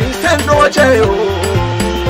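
Background music in an African pop style, with a steady bass line and beat.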